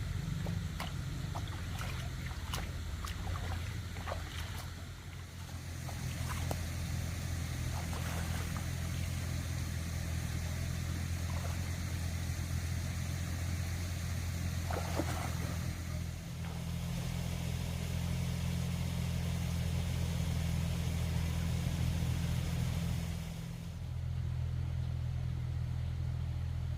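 Small motorbike engine running steadily while riding, with a few clattering knocks in the first seconds. The engine note dips briefly near the end, then picks up again.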